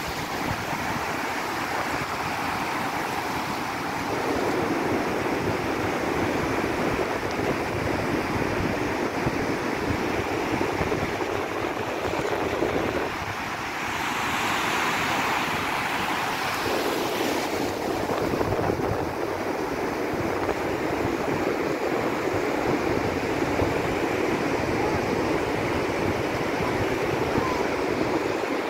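Pacific surf washing up a sandy beach in shallow, foaming waves: a steady rush of breaking water, with wind buffeting the microphone. The sound shifts abruptly a few times.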